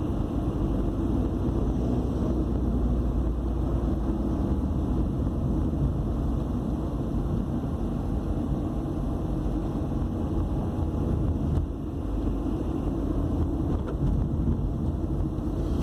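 Steady road and engine noise inside a moving car's cabin: an even low rumble with no breaks.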